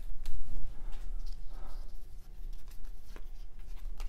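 A stack of Topps baseball cards handled and flipped through by hand: soft sliding and rubbing of card stock with a few light ticks.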